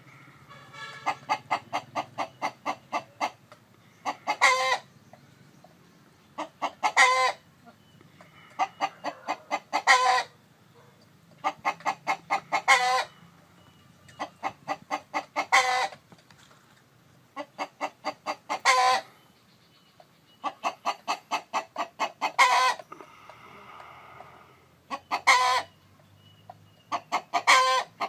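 Chicken cackling: runs of short, evenly spaced clucks, each run ending in one loud drawn-out squawk, repeated about every three seconds.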